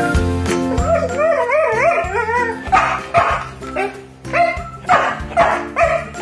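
A dog whining in a wavering cry that rises and falls, then letting out a run of short yelping barks, the dog's way of scolding its owner for coming home late. Light background music with bell-like notes plays underneath.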